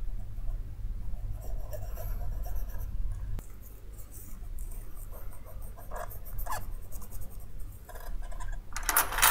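Scratchy rubbing of a tool and tissue over a metal BGA reballing stencil as loose solder balls are swept across it and the surface is wiped clean, in irregular strokes with a louder scrape near the end; a steady low hum underneath.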